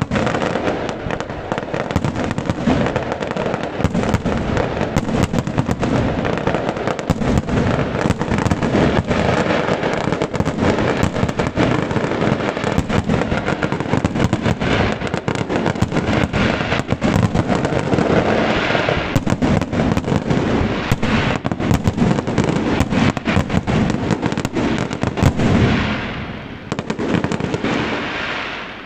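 Fireworks finale: a dense, continuous barrage of shell bursts and crackling, the bangs overlapping with barely a gap, easing briefly about three seconds before the end and then going on.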